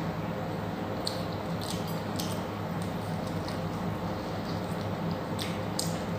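Close-up eating sounds: wet chewing with sharp mouth clicks and smacks, in clusters about a second in, around two seconds in and near the end, over a steady low hum.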